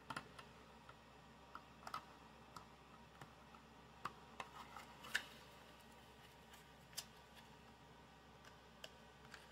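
Faint clicks and rustles of a deck of playing cards being slid into its paperboard tuck box and the flap tucked shut, with a sharper click about five seconds in.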